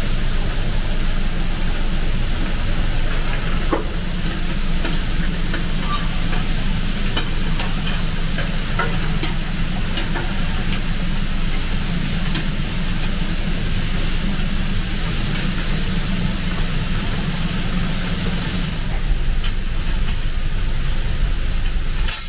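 Steady hiss of steam and spraying water from beneath a C11 steam locomotive, with a deep rumble underneath and a few faint ticks. The hiss grows brighter near the end.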